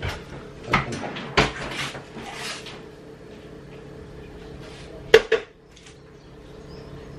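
Kitchen clatter of crockery, utensils and cupboard doors being handled: a few scattered knocks, then a sharp double clack about five seconds in, over a faint steady hum.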